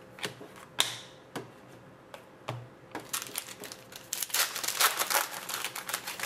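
A few light taps of trading cards being handled, then from about three seconds in the foil wrapper of a hockey card pack crinkling as it is torn open.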